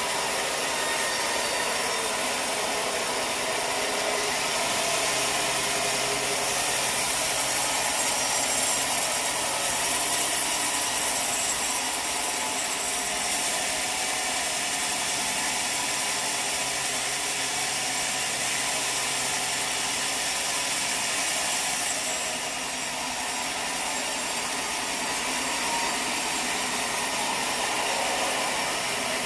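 Sawmill blade cutting steadily through a large log, a continuous hissing saw noise that dips briefly a little over two-thirds of the way through before carrying on.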